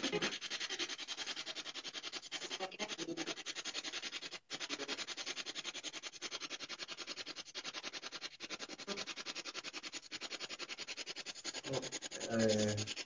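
Choppy radio static pulsing several times a second, like a spirit box (ghost box) radio sweeping through stations. It breaks off briefly about four and a half seconds in. A voice speaks briefly near the end.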